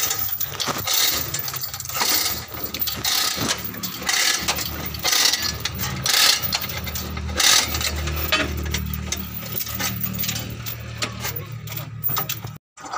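Irregular metallic clinks and knocks of hand tools working on a truck engine during installation, over a steady low hum.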